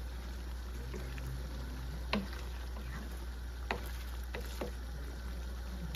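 Wooden spatula stirring pork igado in a wok, knocking against the pan a few times, over a faint simmer of the sauce and a steady low hum.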